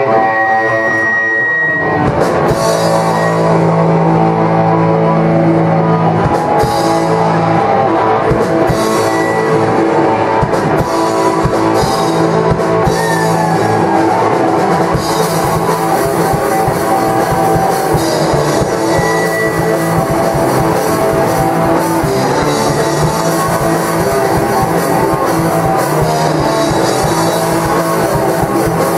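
Live rock band playing loud: distorted electric guitars, bass guitar and drum kit. A guitar rings out alone at first, and the full band with drums comes in about two seconds in.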